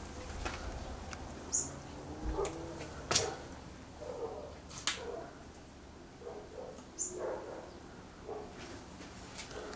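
Footsteps and light knocks on a debris-strewn floor, a few sharp clicks standing out, with short bird calls in the background.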